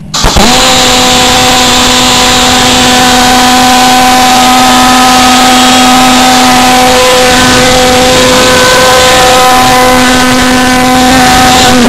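Model pulsejet engine on an RC boat catching and running flat out: a very loud, steady buzzing drone at one fixed pitch with strong overtones. It rises briefly in pitch as it lights within the first second and cuts off suddenly near the end.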